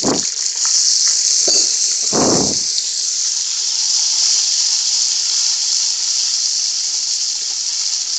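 Hot oil sizzling steadily in a cooking pot as garlic and dry spices fry for the masala, with three short stirring noises from a spatula in the first three seconds.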